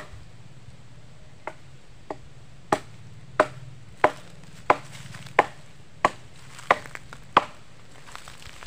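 Repeated blows of a blade chopping felled jeungjing (sengon) branches into firewood: about eleven sharp chops, one roughly every two-thirds of a second.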